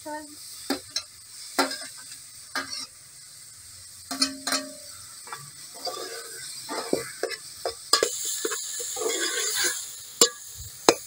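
Metal spoon scraping chopped tomatoes off a metal plate into a metal cooking pot, with sharp clinks and a brief ring of metal about four seconds in, over a faint steady sizzle from the pot.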